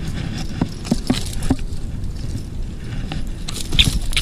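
A fishing reel cranking in line, with irregular mechanical clicks and rattles of tackle. A louder cluster of clicks comes near the end.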